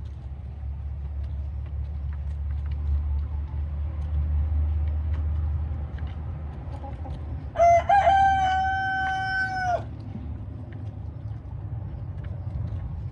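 A rooster crows once, a single long call of about two seconds, about halfway through. It sits over a steady low rumble.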